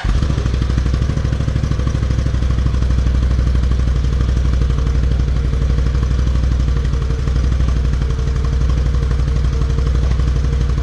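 Can-Am Renegade XMR 570 ATV's V-twin engine idling steadily.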